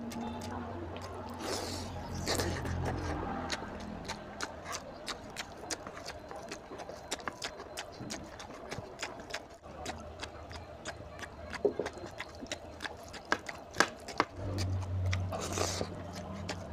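Close-miked eating: a dense run of wet clicks and smacks from chewing and from fingers squishing and mixing rice with oily mutton curry on the plate.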